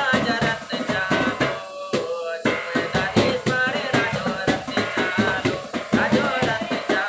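A man singing a melody in Hindi-style vocals over music with a steady drum beat.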